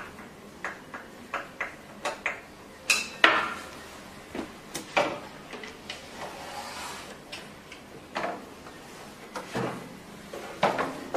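Irregular clicks and knocks of machine parts being handled and fitted together during assembly of a facial beauty machine, with a longer rubbing scrape around the middle.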